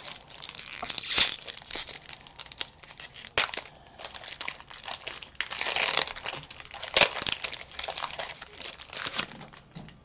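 Foil Pokémon booster pack wrapper crinkling and tearing as it is pulled open by hand, in several irregular bursts with a couple of sharp clicks.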